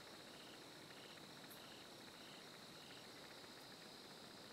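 Near silence with a faint steady chorus of crickets and other insects, and one chirp repeating about every half second that stops about three seconds in.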